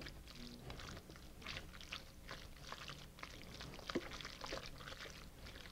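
Faint wet squelching and scraping of a silicone spatula stirring diced raw tuna dressed with soy sauce and lime juice in a glass bowl, with two light clicks, near the start and about four seconds in.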